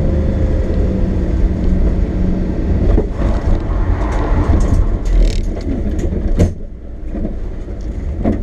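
Lexus SC400's V8 running as the car rolls slowly over a wet, potholed road, with a few sharp knocks about three, six and eight seconds in. The engine note eases off after the second knock.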